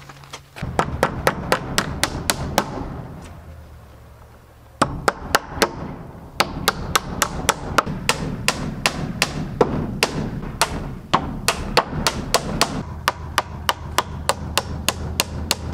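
Hammer driving nails into milled wooden siding boards: quick, even strikes, about three a second, in two runs with a pause of about two seconds between them.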